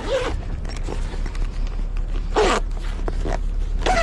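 Zipper on a fabric gear bag pulled in three short strokes, each a quick swish sliding down in pitch, over a steady low hum.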